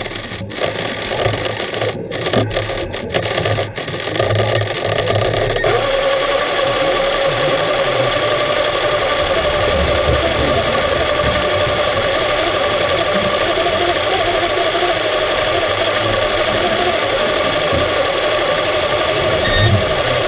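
Underwater sound in a deep dive pool: a steady machine-like hum and hiss, with the low burble of divers' scuba regulators exhaling bubbles now and then. The sound breaks up with brief dropouts in the first few seconds, then runs steady.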